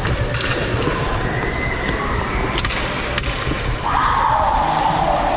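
Ice skates gliding and scraping on the rink, under a steady rumble of movement, with a few sharp clicks. About four seconds in, a high call starts and falls in pitch, like a child's voice calling out.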